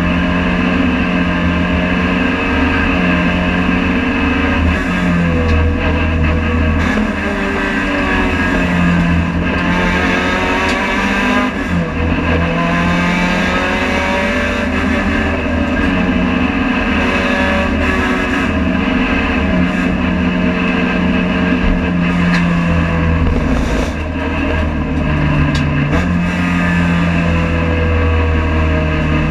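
Honda Civic FD2 race car's four-cylinder engine heard from inside the cabin, running hard at high revs, the pitch climbing and falling again and again as the driver shifts gears.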